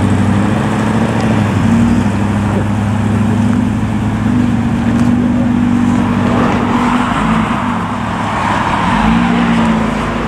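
Car engines at a junction: a BMW 840Ci's V8 pulling away, then a Nissan GT-R's engine running as it waits to pull out. A steady low engine note carries throughout, with a broader rushing noise building about six seconds in.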